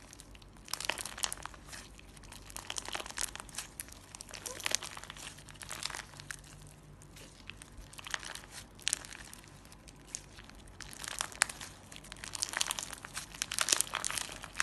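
Clear slime with glitter and small balls mixed in, being squeezed and worked by hand: clusters of crackling, popping clicks with short pauses between.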